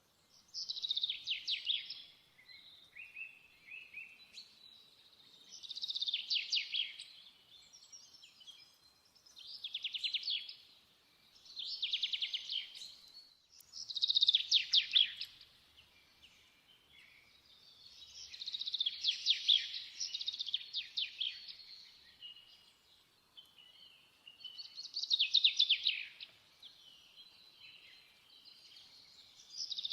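A songbird singing: high, fast-trilled phrases of a second or two, repeating every few seconds.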